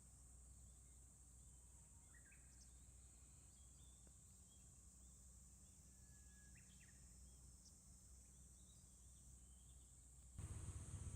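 Faint outdoor ambience: a steady high-pitched insect drone with a few brief, faint bird chirps. Music comes in near the end.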